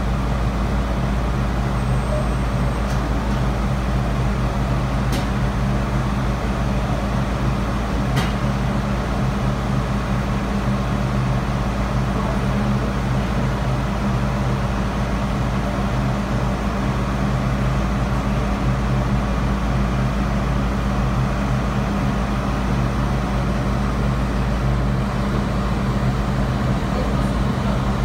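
A steady, unchanging low machine hum made of a few even tones, over a constant rushing rumble.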